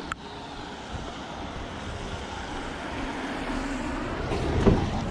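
Van on the move: steady road and engine rumble that grows louder toward the end, with a sharp click just after the start and a few knocks near the end.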